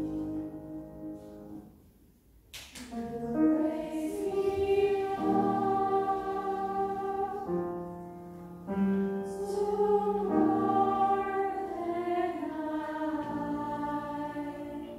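A children's choir sings sustained chords in several parts. The singing breaks off briefly about two seconds in, then resumes.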